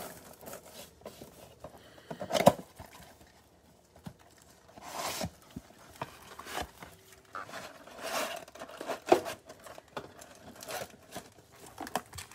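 A cardboard trading-card mega box being torn open by hand, its flaps and paper insert folded back and the stack of foil card packs pulled out. The tearing and rustling come irregularly, loudest about two and a half seconds in.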